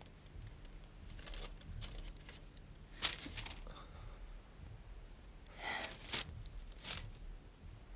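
Quiet room with faint rustles of clothing and furniture as people shift in their seats, and one sharp click about three seconds in.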